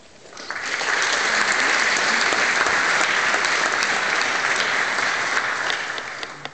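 Audience applauding, building up about half a second in, holding steady, then tapering off near the end.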